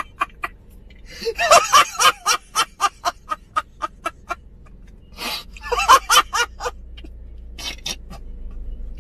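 A man laughing hard in fast, repeated ha-ha bursts, in several fits broken by short pauses.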